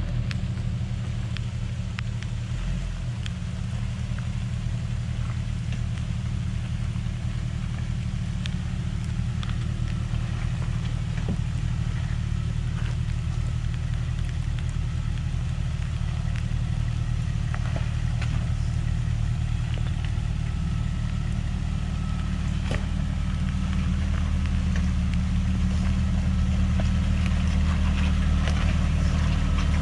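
Jeep Wrangler TJ engine running in a steady low drone while driving off-road, growing a little louder near the end, with a few scattered light ticks.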